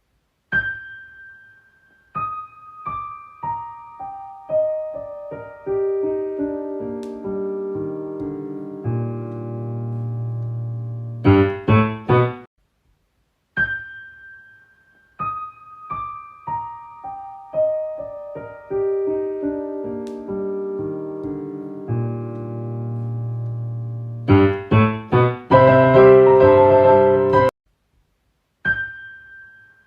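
Piano music: a phrase of single notes stepping downward from high to low, ending in a few quick chords, then a short pause and the same phrase again.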